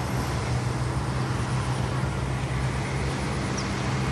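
Steady, unchanging low engine hum over a background hiss, as of a motor vehicle running nearby.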